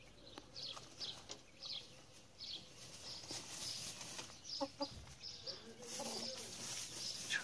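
Chickens clucking softly, with short high chirps scattered throughout and a few low clucks a little past the middle.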